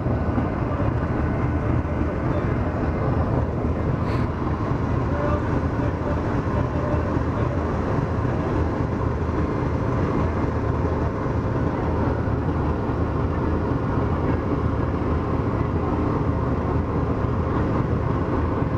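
Pakistan Railways GEU-40 diesel-electric locomotive idling at a standstill: a steady deep engine rumble with a faint constant hum.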